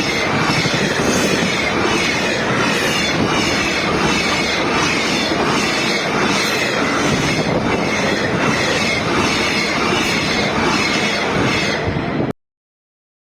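Freight train wagons rolling past at speed, a steady rumble of wheels on rail with regular clacks and a faint high wheel squeal. It cuts off suddenly near the end.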